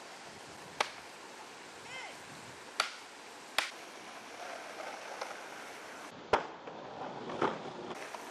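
Steady rush of water pouring over a concrete spillway, broken by several sharp clacks of skateboards hitting concrete, with a brief voice about two seconds in.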